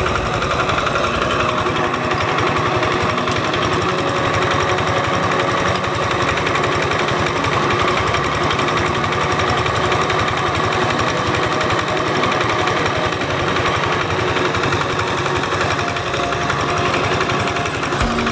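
Stationary diesel engine driving an irrigation water pump, running steadily with a fast, even beat of firing strokes.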